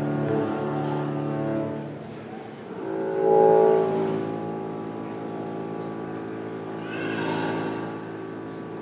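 Slow music of long held notes on a low bowed string instrument. New notes swell in about three seconds in and again near seven seconds, and the sound fades gently toward the end.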